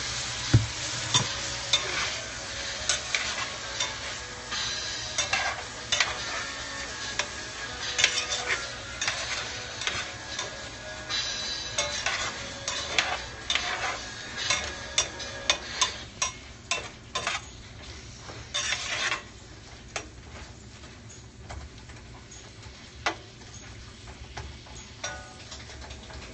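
Steak, shrimp and onions sizzling in a cast-iron skillet while a utensil stirs and scrapes them, with frequent clicks and knocks against the pan. The sizzle and stirring grow quieter in the second half.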